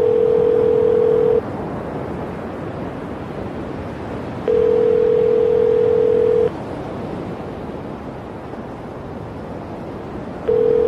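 Telephone ringback tone: a single steady tone lasting about two seconds, repeated every six seconds or so (three rings here, the last starting near the end), over a steady hiss. The call is ringing out, waiting to be answered.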